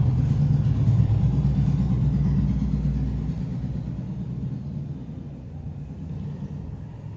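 A low rumble, loudest in the first second or so and then fading steadily away.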